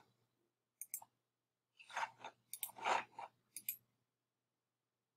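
A few faint, short clicks and rustles from a computer mouse or trackpad being used, scattered over the first few seconds.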